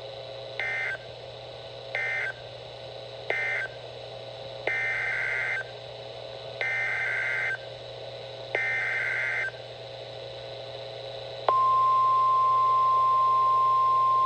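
Emergency Alert System tones on NOAA Weather Radio. First come three short warbling data bursts, the end-of-message code for the warning just read. Then come three longer bursts, the SAME header for the next warning. About 11 seconds in, the loud, steady 1050 Hz warning alarm tone begins and holds.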